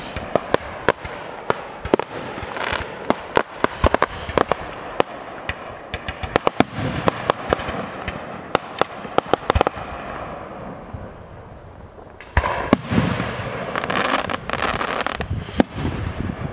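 Fireworks firing: many sharp bangs in quick succession mixed with crackling and hissing. The shots thin out around ten seconds in, then a fresh volley of bangs and crackle starts about twelve seconds in.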